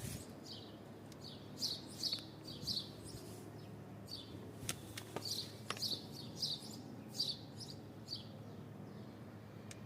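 Minsk refrigerator running with a steady low hum, over which come short, high, falling chirps at an irregular pace of about one or two a second, plus a couple of sharp ticks midway.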